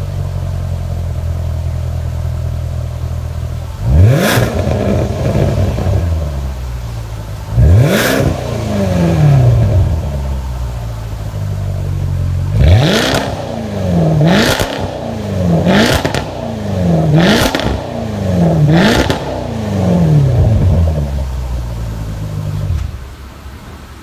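Range Rover engine through an aftermarket quad-tip exhaust, idling steadily and then revved. It gives single revs about 4 and 8 seconds in, then five quick revs in a row about a second and a half apart, each falling back toward idle before the idle settles near the end.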